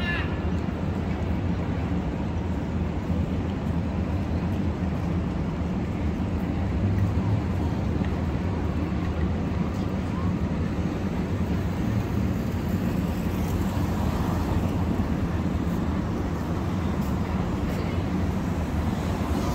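Steady city street noise: a continuous low rumble of traffic with no single event standing out.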